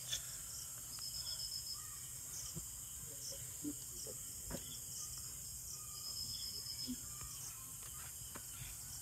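Crickets chirping in short, repeated high trills over a steady high insect hum, with a few faint clicks.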